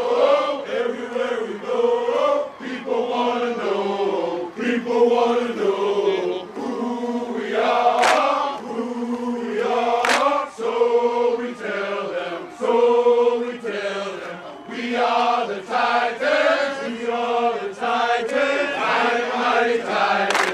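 A football team's many male voices chanting in unison, in short rhythmic phrases sung on a few held notes, with two sharp cracks near the middle.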